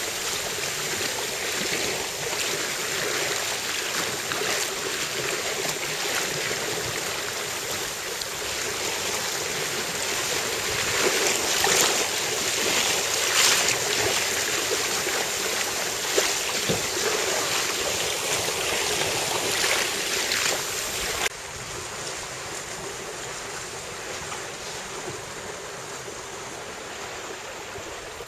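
Wind buffeting the microphone over the rush and slap of choppy water around a sailboat under way. About three-quarters of the way through it drops suddenly to a quieter, steadier rush.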